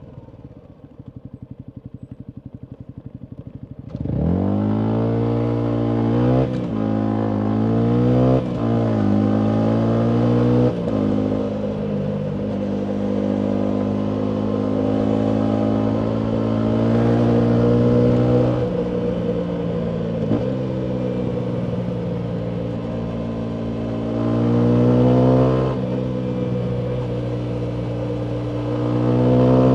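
Yamaha MT125's single-cylinder four-stroke engine through a full Akrapovic exhaust: idling for about four seconds, then pulling away hard with rising revs and three quick upshifts, each a short dip in pitch. It then runs at steady cruising revs, swells briefly and falls back, and picks up again near the end.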